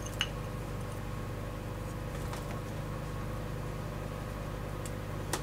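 A steady low mechanical hum, with a few faint light clicks now and then.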